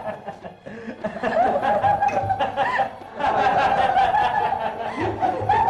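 Several people laughing and snickering in short bursts of giggles, with a brief lull about a second in and another near three seconds.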